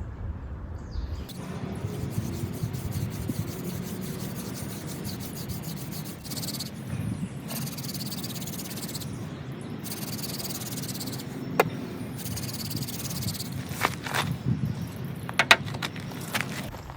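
Hand drill: a yucca spindle spun back and forth between the palms, grinding into a spalted white oak fireboard, with steady rubbing and a few sharp clicks in the second half. The board is still too damp to make an ember.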